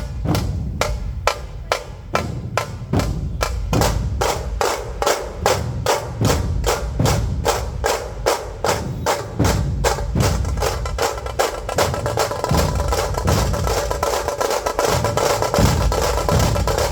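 Dhol drumming in a fast, steady rhythm: sharp high strikes about four a second over deep low beats. A held pitched sound joins in about ten seconds in.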